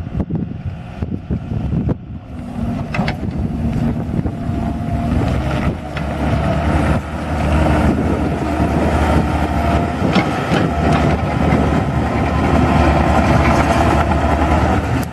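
Compact excavator's Kubota V2003 four-cylinder diesel engine running. It grows louder over the first half, as if throttled up or put to work, then holds steady. A few knocks sound in the first seconds.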